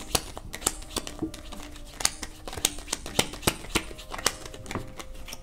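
A tarot deck shuffled by hand: a steady run of sharp, irregular card clicks and snaps, about three or four a second.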